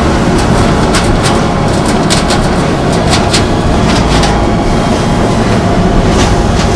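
Large corrugated-board printing machine and its belt-and-roller conveyor running steadily: a loud, even low rumble with frequent sharp clacks at an uneven pace as printed cardboard sheets are fed out.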